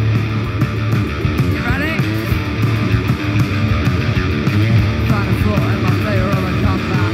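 Live rock band playing loud: distorted electric guitars, bass and a drum kit pounding on, with a singer's voice rising over it now and then.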